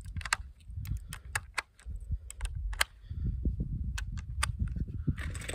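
Rifle cartridges being pressed one at a time into an AMEND2 polymer AR-15 magazine, each round going in with a sharp click in an irregular run, over a low rumble.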